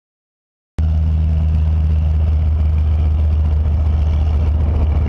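Small single-engine propeller plane's engine running on a runway, heard as a steady drone with a strong low hum. It starts abruptly about a second in.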